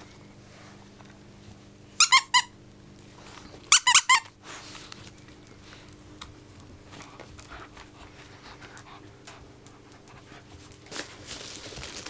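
Plush squeaky dog toy squeaking as a dog bites it: a quick run of three squeaks about two seconds in, another run of three or four about two seconds later, then soft rustling of the toy near the end.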